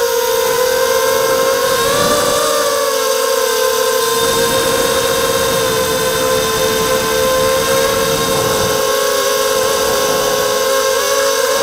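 Morphite 180 FPV quadcopter's brushless motors and propellers whining in flight, heard through the onboard camera's mic: a steady, loud whine whose pitch wavers slightly with throttle, over a hiss of prop wash.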